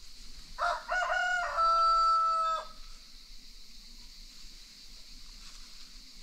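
A rooster crows once: a few short rising notes, then a long held final note, about two seconds in all.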